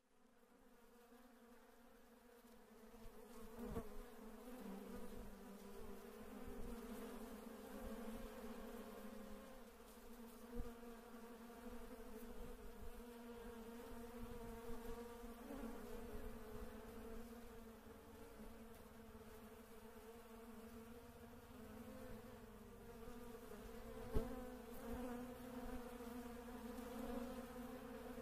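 Bees buzzing: a steady, low hum with several overtones that fades in over the first few seconds, with a few short clicks, the sharpest near the end.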